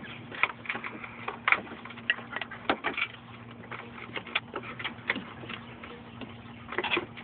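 Irregular light clicks and taps of hands handling an HID headlight kit's wiring and plastic connectors under a car's hood, over a faint steady hum.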